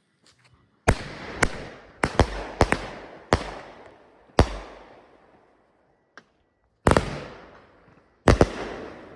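Raccoon Fireworks 'The Love of Magic' 500 g consumer firework cake firing, a string of about a dozen sharp bangs that each trail off in a long echoing rumble. Several bangs come in quick succession in the first few seconds, then they space out, with a pair near the end.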